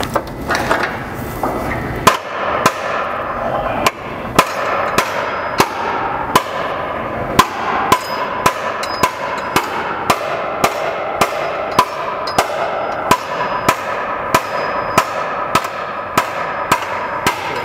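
A hammer striking the steel front frame rail of a 2005 Ford Focus while the rail is held under pull on a frame-straightening machine. The blows come steadily, about one and a half a second, each with a short metallic ring. This is stress-relief hammering, moving the metal while it is under tension.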